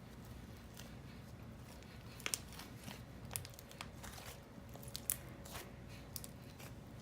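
Glossy slime being worked by hand, giving irregular sharp clicks and pops.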